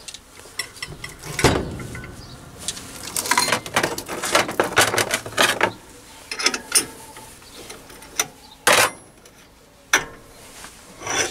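Irregular metallic clicks, clinks and scraping as a spanner loosens the nut of a steel expanding mandrel and the mandrel with its pulley is worked out of the back of a mini lathe's spindle.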